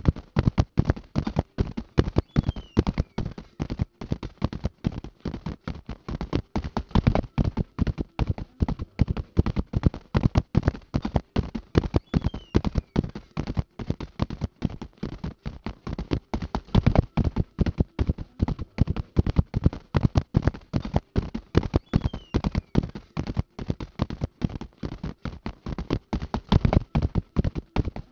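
Racehorses galloping: hooves drumming in a rapid, continuous, even rhythm of thuds.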